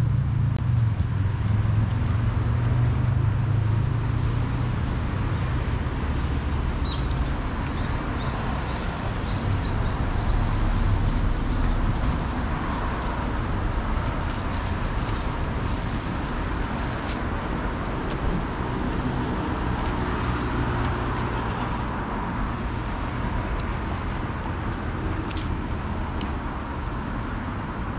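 Outdoor ambience dominated by a steady low rumble of road traffic, heaviest in the first half. A run of short high chirps comes about seven to ten seconds in.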